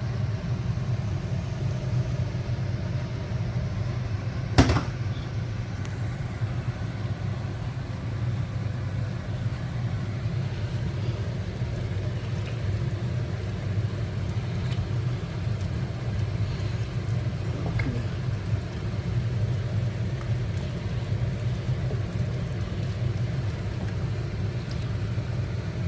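Steady low hum throughout, with one sharp click about four and a half seconds in and a fainter one near the end.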